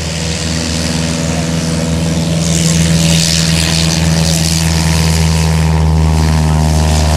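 Single-engine high-wing Cessna's piston engine and propeller running steadily at taxi power as the plane rolls close past. It grows louder, with a rush of propeller hiss a few seconds in as it comes nearest.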